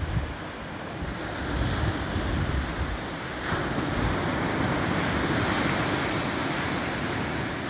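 Surf washing onto the beach, with wind buffeting the microphone as a low rumble. About three and a half seconds in, a wave comes in as a broad rising hiss that slowly eases off.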